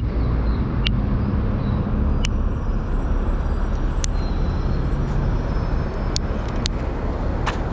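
Steady low rumble of motor traffic, with a few sharp clicks scattered through it.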